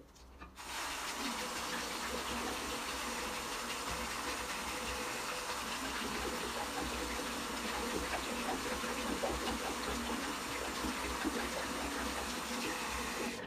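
Tap water running steadily from a faucet into a ceramic bidet basin, with a dog lapping at the stream.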